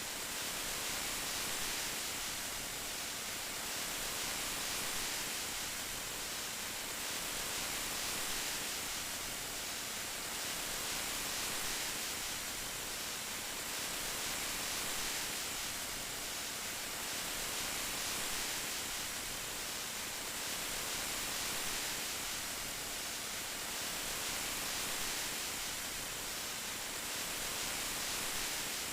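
Steady rain, an even hiss with no separate drops or other events, swelling slightly every couple of seconds.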